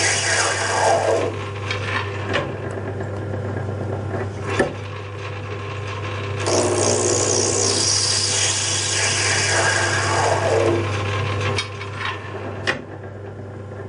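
Metal lathe cutting the end of a spinning brass bar: two cuts, each a loud, high scraping whose pitch falls as it goes, over the steady hum of the running lathe. A few sharp clicks come in between.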